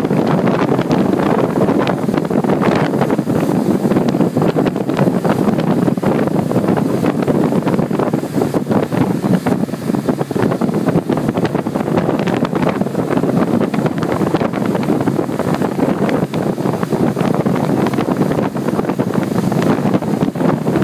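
Steady wind rush buffeting the microphone aboard a moving wakeboard tow boat, mixed with the boat's engine and the churn of its wake.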